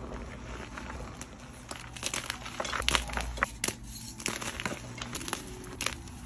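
Dyed gym chalk being pressed and crushed by hand. A soft, steady crunch of compressed powder comes first, then from about two seconds in a run of sharp crackles and snaps as the chalk blocks break apart and crumble.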